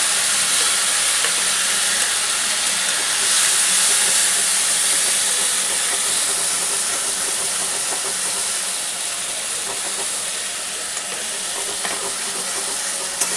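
Ground onion, garlic and tomato paste frying in hot oil in a kadai: a steady sizzle that slowly dies down.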